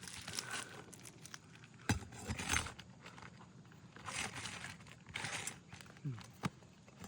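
Prying tool scraping and working under an asphalt shingle to pull roofing nails, with crackling and tearing of the shingle and a sharp knock about two seconds in.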